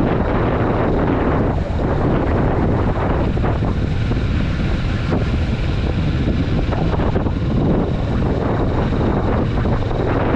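Kawasaki Vulcan S's 649 cc parallel-twin engine running at steady road speed during its break-in period, under heavy wind noise on the microphone.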